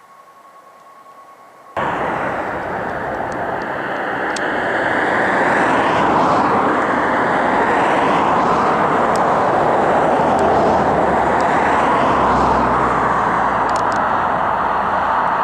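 Air tanker's engines on a landing approach: a loud, steady rushing engine noise with a swirling sweep through its hiss. It cuts in suddenly about two seconds in, after a faint hiss with a thin steady tone.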